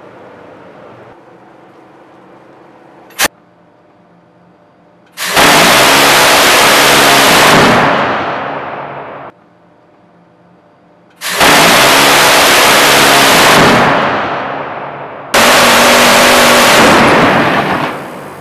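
Phalanx CIWS 20 mm six-barrel Gatling cannon firing three long bursts, each a continuous rapid-fire buzz about two seconds at full loudness that then trails off. A single sharp click comes about three seconds in, before the first burst.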